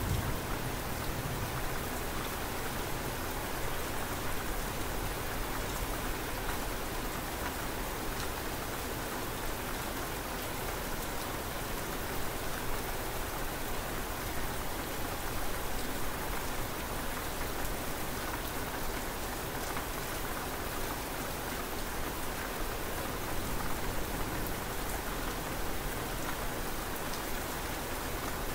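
Steady rain falling: an even hiss of rain with individual drops ticking close by.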